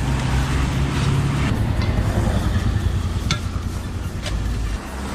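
Motor vehicle engine running with a steady low hum, its pitch dropping slightly about a second and a half in, with a couple of sharp clicks in the second half.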